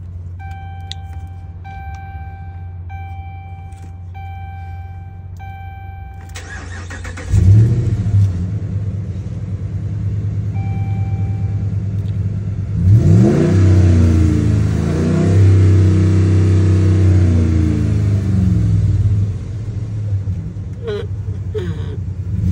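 A repeating dashboard warning chime beeps about every two-thirds of a second, then the 2010 Dodge Ram 1500 Laramie's engine cranks and fires on a cold start about seven seconds in, flaring loudly before settling into a fast idle. About 13 seconds in it is revved up and held, then dropped back to idle about 19 seconds in.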